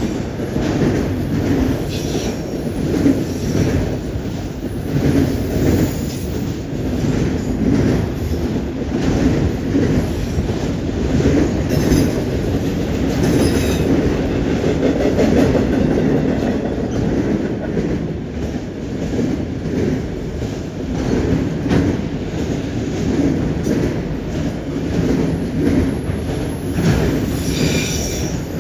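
CN freight train cars rolling past with a steady rumble, their wheels clicking over rail joints and the junction switch. Brief wheel squeals come in a few times, around 12 and 13 seconds in and again near the end.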